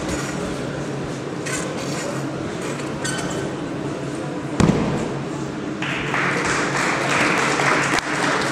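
A gymnast's horizontal-bar dismount landing on the mat: one heavy thud about halfway through, followed from about six seconds by applause, over a steady hum of the hall.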